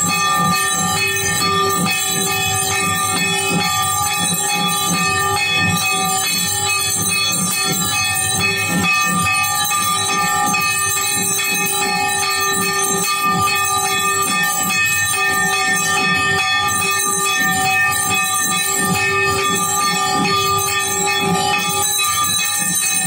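Temple aarti bells ringing and clanging without a break: several sustained ringing tones layered over a fast, dense run of strikes.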